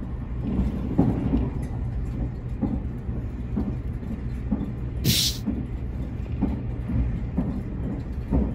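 Nankai 50000 series Rapi:t electric train running, heard from inside the passenger car: a steady rumble with wheel thumps over rail joints roughly once a second, and a short sharp hiss about five seconds in.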